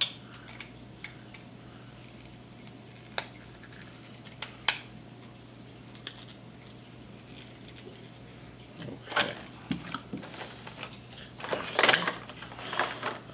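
Plastic toy packaging being handled: a few light clicks and taps, then crinkling of a clear plastic bag in the last few seconds.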